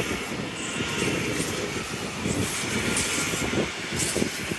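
Northern passenger multiple-unit train passing close by at speed: steady rumble and clatter of its wheels on the rails.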